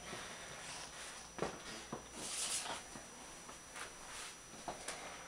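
Quiet small-room tone with a few faint knocks and a soft rustle, with a faint steady high tone underneath.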